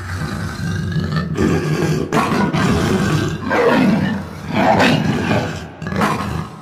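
Big cat roaring and growling: deep, rough roars that swell to their loudest in two long calls around the middle and near four to five seconds in, then die down near the end.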